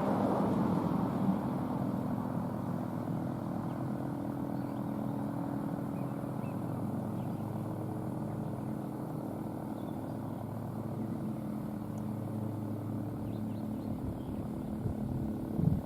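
Federal Signal 2T22 three-phase warning siren winding down: the last of its falling tone fades within the first second, leaving a steady low hum.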